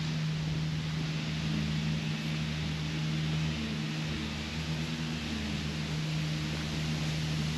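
A steady low mechanical hum with a constant hiss behind it and a few slightly wavering higher tones above the hum.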